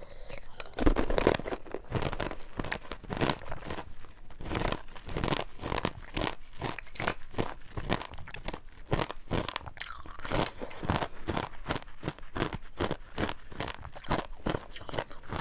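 Ice frozen with basil seeds being bitten and chewed close to a clip-on microphone: a rapid, irregular run of sharp crunches.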